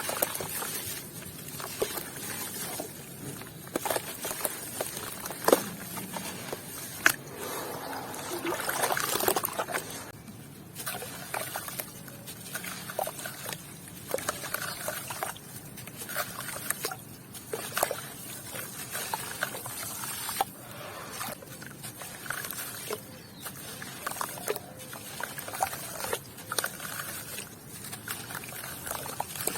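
Gritty white cement being crumbled and crushed, partly wet: dense, irregular crunching and crackling with occasional sharp snaps, and some watery trickling.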